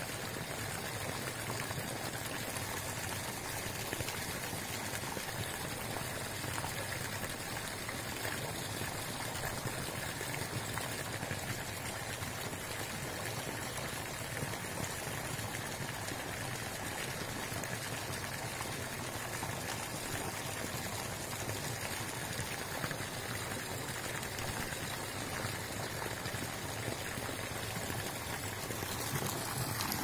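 Jet of water from a pipe falling and splashing steadily into a pond, a constant pouring rush with no breaks.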